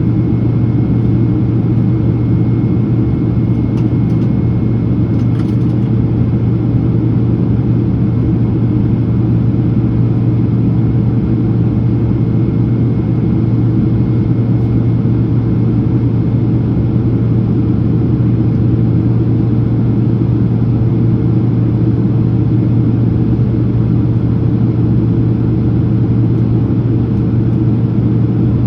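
Boeing 767-300ER cabin noise in flight during descent: the jet engines and airflow make a loud, steady drone with a low hum and a faint steady whine above it.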